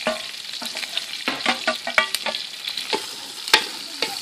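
Chopped shallots sizzling as they fry in hot coconut oil in a metal pan. A wooden spatula stirs them, knocking against the pan again and again with short ringing clicks, the loudest about three and a half seconds in.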